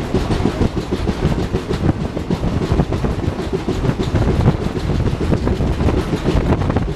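Express train running at speed, its coach wheels on the track making a steady rumble with many quick clickety-clack clicks over the rail joints.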